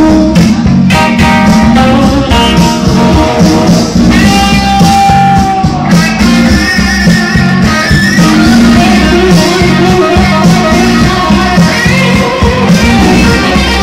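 Electric guitar playing a lead solo over a steady rhythm backing, loud and live. It holds one long note about four seconds in and bends a note upward near the end.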